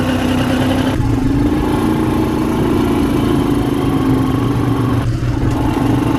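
ATV (quad bike) engine running under way, heard from the rider's own machine: a steady drone whose pitch rises and dips slightly with the throttle, easing briefly about five seconds in.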